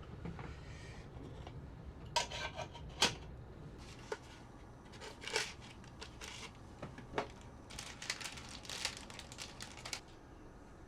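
Scattered light clicks, knocks and rustles of small objects being handled, with a busier patch of quick clicks near the end.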